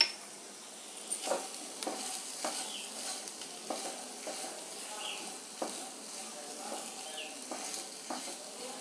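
Spatula stirring pieces of taro root (arbi) and dry spices in a nonstick pan, scraping the pan in short strokes every second or so over a light frying sizzle.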